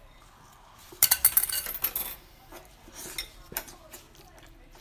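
Wooden skewers of chili-oil seafood clattering and scraping against each other and the tray as a bundle is picked up. A dense rattle lasts about a second, then a few lighter clicks.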